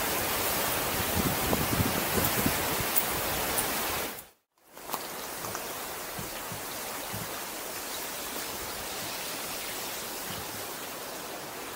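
Steady rushing of fast-flowing river water, with low buffeting on the microphone. About four seconds in the sound cuts out briefly, then the water rush resumes, a little quieter and steady.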